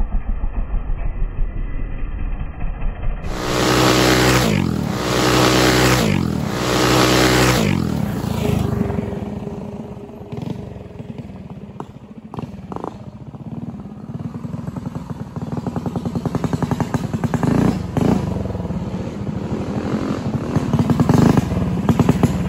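Single-cylinder four-stroke minibike engines: one is revved hard three times, its pitch rising and falling each time, a few seconds in. Near the end an engine's fast, even firing pulse grows steadily louder at low revs.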